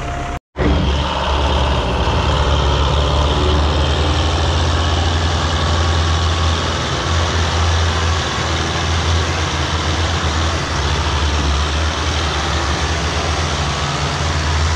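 Diesel tractor engines running hard under heavy load, pulling a loaded sugarcane trolley that is stuck in mud. Steady, deep engine drone; the sound drops out completely for a moment just under half a second in.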